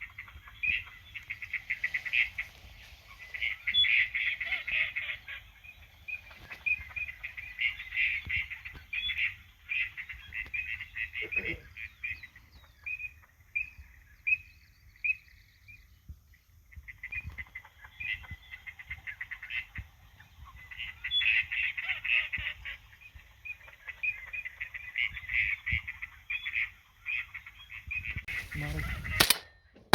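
Waterfowl calling in a busy chorus of rapid, overlapping calls that thin to a few spaced calls midway and then build again, with a brief rush of noise near the end.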